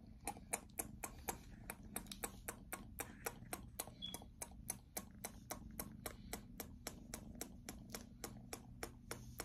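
Faint, rapid, evenly spaced clicking, about five clicks a second, over a low steady hum.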